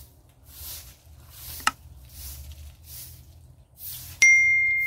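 A broom sweeping bare dirt ground in soft swishing strokes, about one every three-quarters of a second. About four seconds in, a loud single bell-like ding sound effect from a subscribe-button animation rings out and fades slowly.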